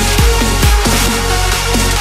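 Electronic dance music with a heavy beat and repeated falling bass sweeps, in a dubstep style.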